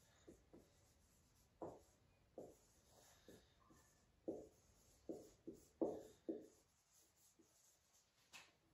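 Marker pen writing on a whiteboard: a faint run of short, irregular squeaky strokes as the letters are drawn.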